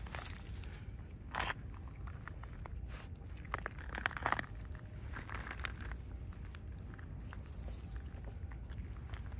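Raccoon dogs crunching small dry pet-food pellets in short, irregular bouts, with a cluster of crunches around four seconds in, over a steady low rumble.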